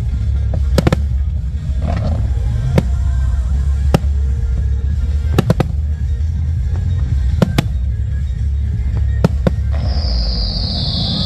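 Aerial fireworks bursting, about a dozen sharp bangs at irregular intervals, some in quick pairs, over a steady low rumble and show music. A few short whistling tones rise and fall, and a loud hiss starts near the end.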